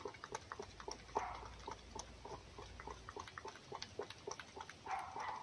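Fox eating egg from an enamel bowl: quick, irregular wet lapping and chewing clicks, a few a second, with a couple of soft breathy rustles.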